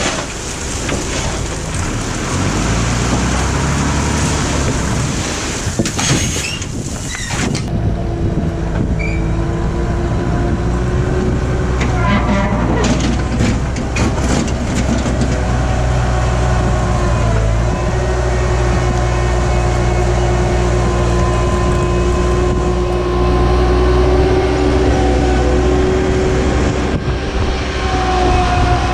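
Skid steer engine running hard under load, with a hydraulic whine that rises and falls as the 4-in-1 combination bucket is worked. Several metallic clanks of the bucket come about 12 to 15 seconds in.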